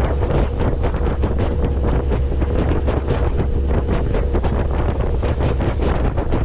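Wind buffeting the microphone over a steady low rumble, with a faint constant hum.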